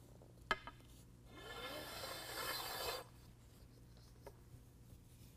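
A soft-top fabric's stitched-in P-strip sliding through an aluminum extrusion channel: a sharp click about half a second in, then a rubbing scrape lasting about a second and a half.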